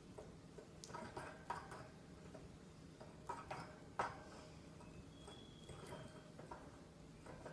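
A canary in its cage between songs: faint scattered taps and clicks, the sharpest about four seconds in, and one soft, short, high whistled note about five seconds in.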